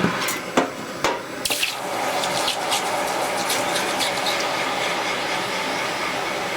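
A few sharp clicks, then a steady hiss as the orange-hot steel cutter blank is quenched in liquid to harden it.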